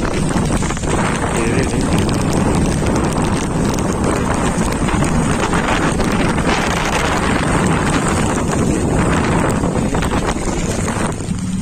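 Strong wind blasting across the microphone on a fishing boat in rough seas, a loud steady roar with constant buffeting that covers all other sound.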